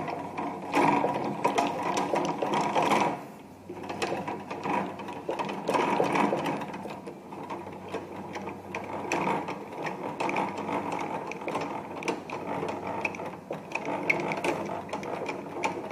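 Height adjustment of an induction cap sealer's sealing head being cranked down, its screw and gear mechanism clicking and ratcheting rapidly, with a short pause about three seconds in.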